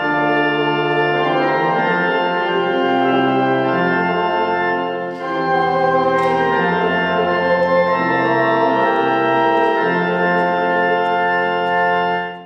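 Church organ playing a closing voluntary after the dismissal: full sustained chords that change every second or two. It fades out quickly near the end.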